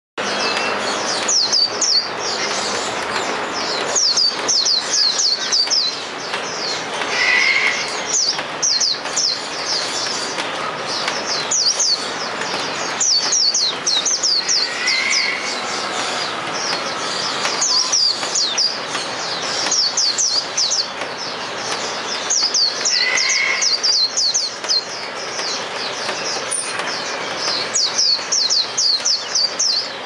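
Hume's white-eye (Zosterops auriventer) in full, continuous song: long runs of rapid, high-pitched chirping notes, one flurry after another, over a steady background hiss.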